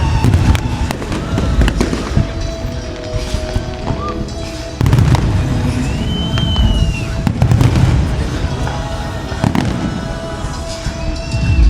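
Fireworks shells bursting in a display: repeated deep booms with crackling, over the pyromusical show's accompanying music.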